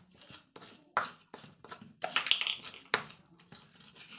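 Pestle pounding and grinding shallots in a mortar (cobek): irregular knocks a few times a second, with a longer scraping grind about two seconds in.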